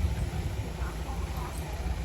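Steady low rumble of heavy diesel earthmoving machinery working stone fill, with a few faint short higher sounds about a second in.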